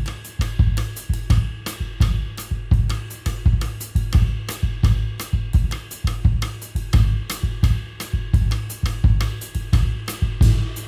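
Drum kit playing a jazz groove: the ride pattern on a lightweight, hand-hammered 21-inch Istanbul Agop special edition jazz ride cymbal, over steady bass drum beats and snare strokes.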